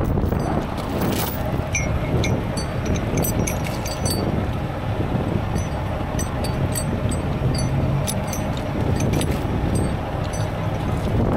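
Tow chain links and steel grab hooks clinking and rattling as the chain is wrapped and hooked around a bus wheel. A steady low rumble of engines and traffic with wind on the microphone runs underneath and is the louder sound.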